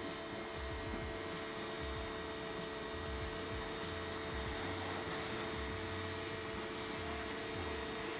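Fujihama FJB-302 portable electric pressure washer running steadily, its motor giving a constant hum with a high steady whine.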